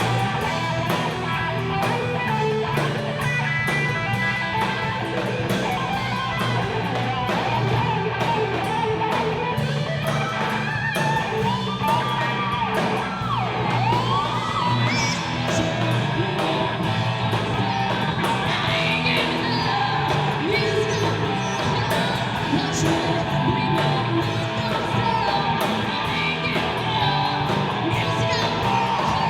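Live rock band playing, with electric guitar to the fore over a steady drum beat and some singing.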